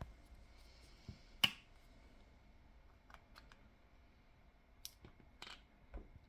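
A few scattered sharp clicks and light taps from handling, the loudest a single click about one and a half seconds in, with a soft thump near the end.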